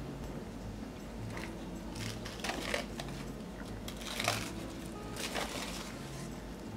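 Plastic cling wrap crinkling as it is peeled off a glass bowl, in short bursts about two seconds in and again around four to five seconds, over soft background music.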